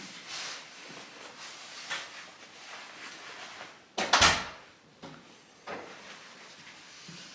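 A door swinging shut with a single loud thud about four seconds in, amid soft rustling of clothing.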